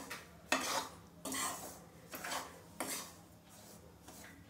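Steel spoon scraping and stirring coarse rice flour as it roasts in ghee in a steel kadhai, in repeated strokes against the pan that die down in the last second or so.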